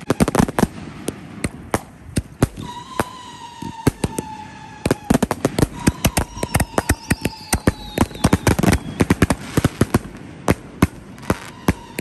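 Rack of fast-fused canister shells firing in rapid succession: sharp launch reports and aerial breaks come several to the second, overlapping, with no let-up.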